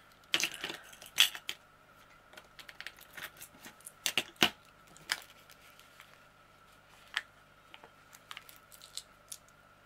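Diamond painting drills (tiny resin gems) clicking and rattling as they are handled and tipped into a small plastic storage compartment, in scattered bursts of sharp little clicks, loudest in the first second and again around four seconds in.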